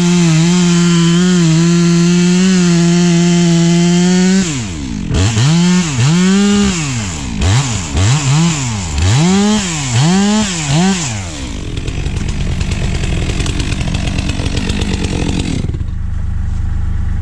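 STIHL MS 462 two-stroke chainsaw running steadily at full throttle. About four seconds in, its pitch swings up and down some seven times as the throttle is worked. It then settles into a rougher, noisier running and drops to a lower steady hum near the end.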